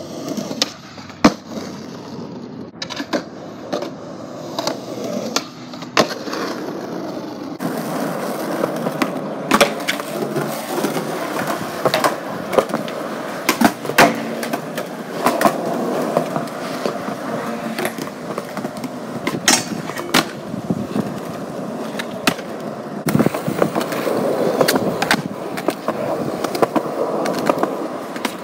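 Skateboard wheels rolling on concrete, broken by many sharp clacks of the board: tail pops, landings and the deck slapping the ground during tricks.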